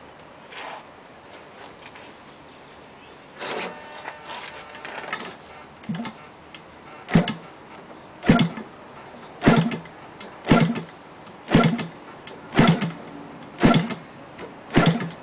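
DLE 30cc single-cylinder two-stroke gasoline engine being hand-flipped by its propeller to start it. From about halfway through, eight sharp flips come about one a second, each a short burst as the engine turns over compression without catching.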